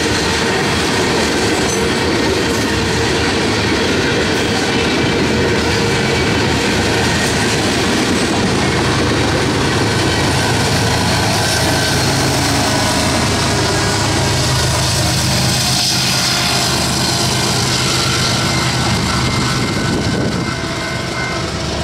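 Freight train of tank cars rolling past, with steel wheels running over the rails. About halfway through, the rear distributed-power diesel locomotive passes with its engine running, adding a steady low hum. The sound eases slightly near the end as the train moves away.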